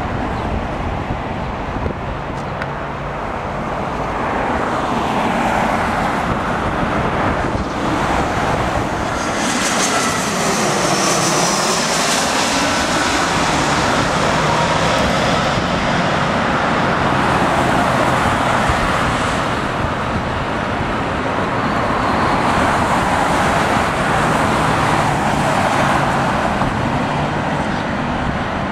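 Jet airliner engines running loud and steady as a plane passes close by, with a sweeping whoosh and a high whine about ten to thirteen seconds in.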